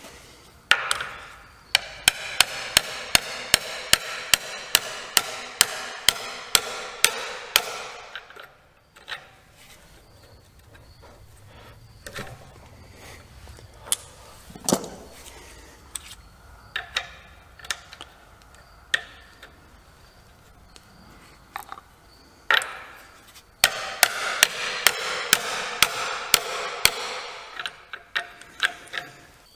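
A hammer striking a steel tube slipped over a knife tang, driving a stack of wet leather washers down tight: two runs of quick, regular blows, about two or three a second, the tube ringing after each, with a few scattered knocks in between.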